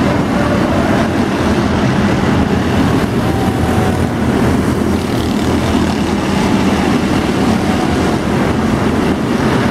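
A field of scaled-down stock race cars running laps on an indoor arena track: their engines make a steady, dense din, with single engine notes rising and falling now and then as cars pass.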